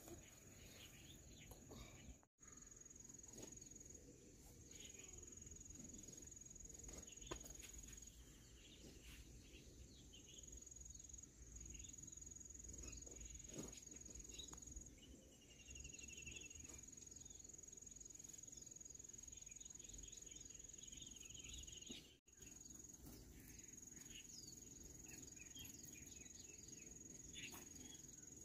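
Faint, high-pitched insect trill running in long stretches with short breaks, over a quiet rural background with a few faint chirps. The sound cuts out for an instant twice.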